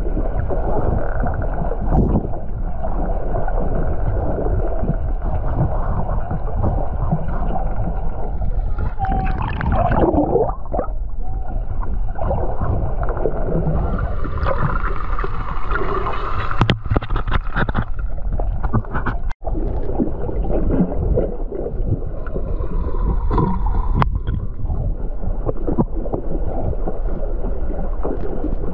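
Underwater sound picked up by a submerged camera: a steady rushing, gurgling water noise from the swimmer moving through the water. A few faint sliding whistle-like tones and scattered clicks come through it.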